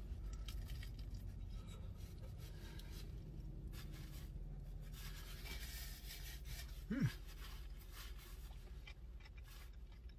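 Faint chewing of a crunchy thin pizza crust, with scratchy crunches and a napkin rubbing, over a low steady hum. A short hummed 'mm' sound about seven seconds in.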